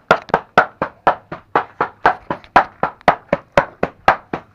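Cleaver mincing meat on a wooden cutting board: a steady, even run of sharp chops, about four a second.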